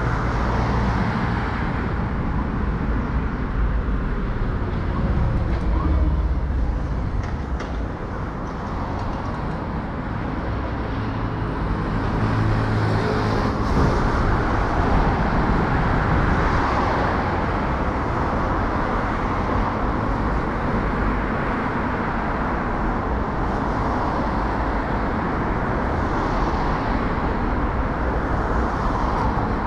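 Traffic on a city street: cars passing in a steady noise with a low engine rumble, one engine louder and closer a little before the middle.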